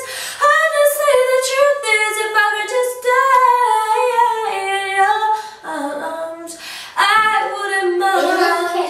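A girl singing solo without accompaniment, holding long notes that slide up and down in pitch.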